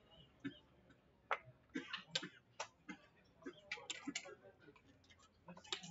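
Backgammon checkers and dice clicking against the board as a move is played, with checkers set down and one hit onto the bar. About a dozen short, sharp clicks and clacks at an irregular pace.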